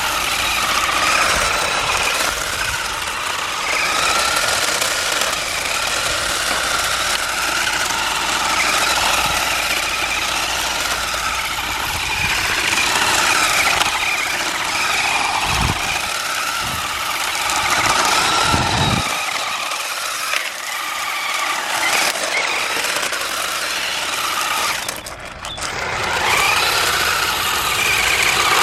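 Electric motor of a remote-control drift car whining, its pitch rising and falling as the car speeds up and slows down. A few low thuds come about two-thirds of the way through.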